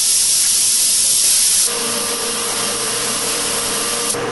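SATA minijet gravity-feed spray gun hissing steadily as it sprays clear coat. The hiss drops in level about halfway through, leaving a weaker hiss over a steady low hum.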